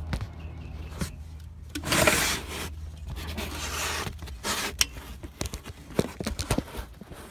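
Hands handling and shifting car interior parts: a rustling scrape about two seconds in, a shorter one near four seconds, and scattered clicks and knocks over a low steady hum.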